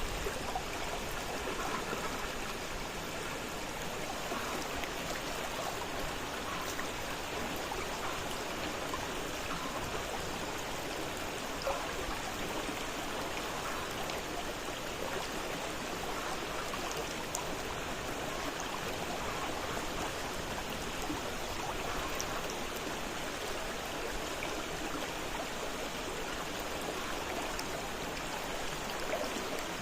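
Fast-flowing river water rushing and splashing in a steady wash, with small droplet splashes scattered through it.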